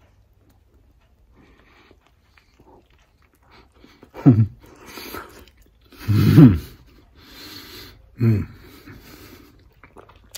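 A man chewing a mouthful of ghost-pepper-mustard chicken cheesesteak. About four, six and eight seconds in he makes three short wordless vocal sounds that fall in pitch, the middle one loudest, with heavy breaths between them. He is reacting to the sandwich's heat.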